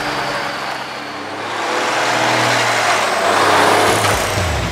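Diesel engine of a Peterbilt semi tractor driving past up close on gravel, pitch rising as it pulls. It grows louder to a peak about three to four seconds in as it goes by.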